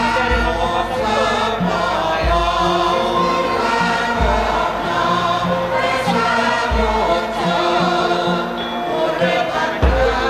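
Javanese gamelan ensemble playing with a chorus singing together in held lines. Deep low strokes fall about every two seconds.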